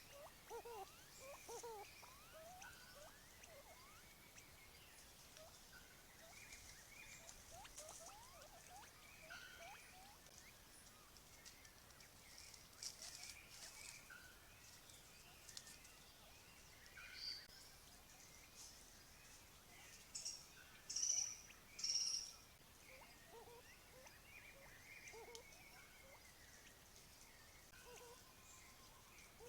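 Quiet forest ambience with many faint, short chirping animal calls, thickest in the first several seconds. A few louder high chirps come about two-thirds of the way through.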